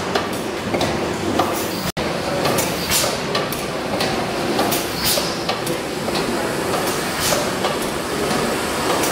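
1914 Richard Hornsby twin-cylinder gas engine running, a steady mechanical din with sharp clicks and knocks from its valve gear repeating about twice a second. A momentary break cuts the sound about two seconds in.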